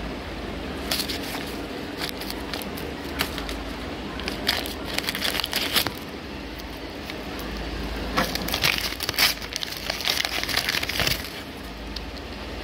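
Paper and plastic tape crinkling and rustling, with light clicks and taps from handled stationery, in several bursts over a steady low hum.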